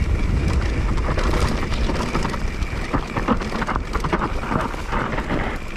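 Wind buffeting the microphone with a low steady rumble as a mountain bike rolls down a dirt and grass trail, with frequent clicks and rattles from the bike jolting over the rough ground.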